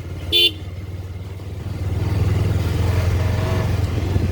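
Motorcycle engine running steadily while riding. A short horn toot sounds about half a second in, and the engine grows louder about two seconds in.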